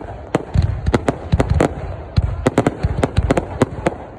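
Fireworks going off in quick, irregular succession: many sharp bangs and cracks, several a second, over a low rumble of booms.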